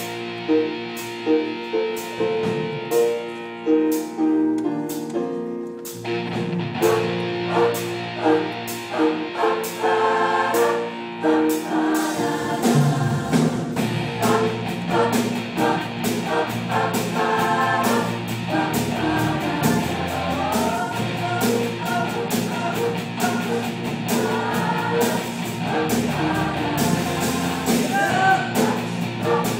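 A choir with a live rock band (electric guitar, piano and drum kit) performing a pop-rock song: repeated chords over a steady beat at first, then the full band and the choir singing in from about ten seconds in.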